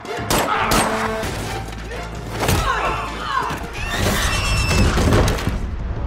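Action-film fight sound effects over dramatic score music: several hard punch and kick impacts, with the fighters' grunts between them. Near the end the impacts stop and the music carries on alone.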